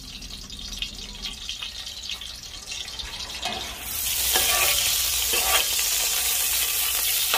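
Hot cooking oil in a pot breaking into a loud, steady sizzle about four seconds in as food goes into it, with a few scrapes of a stirring utensil; before that only a low hiss and light clinks.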